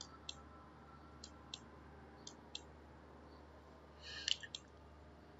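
Faint clicking of a computer mouse, three double clicks about a second apart, each pair a third of a second apart, as slides are advanced. A short rustle with two sharper clicks comes about four seconds in.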